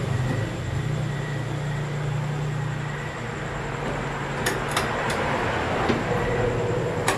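A portable mini table saw's metal body being slid and turned on a bench: a steady rumbling scrape, with a few light clicks and knocks about four and a half seconds in and again near the end.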